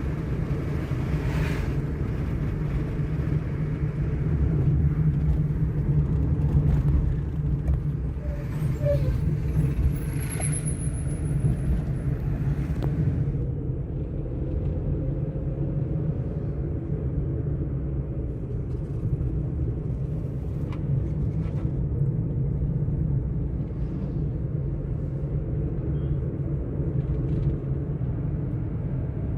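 Steady low rumble of a car heard from inside the cabin, with a higher hiss that drops away about halfway through and a few faint ticks.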